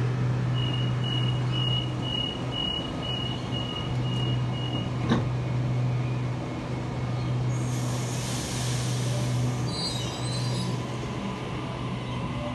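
Sydney Trains B-set electric train departing the platform, over a steady electrical hum. Door-closing warning beeps sound about twice a second for some four seconds, then a thud as the doors shut. A hiss follows, then faint squeals as the train begins to move.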